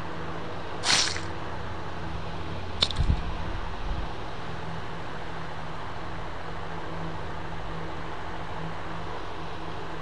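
Added treatment-animation sound effects over a steady background hum: a short squelch about a second in, then a sharp click and a couple of low thuds around three to four seconds in.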